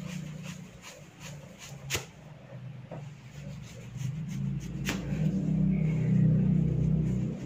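Hair cracking: tufts of hair tugged hard at the scalp, giving a run of small sharp snaps with two louder cracks, about two and five seconds in. Under them runs a low steady hum that grows louder in the second half.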